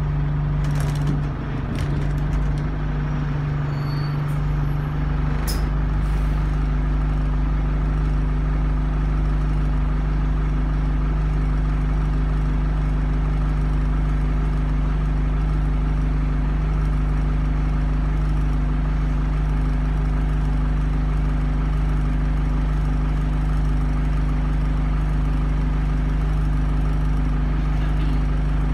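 Bus engine and drivetrain running steadily, heard from inside the passenger cabin as a constant low drone. A couple of faint clicks come about one and five seconds in.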